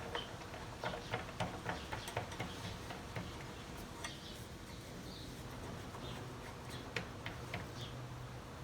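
Light, irregular metal ticks and clicks as the lift kit's cups are spun by hand onto the tops of the struts, over a faint steady low hum.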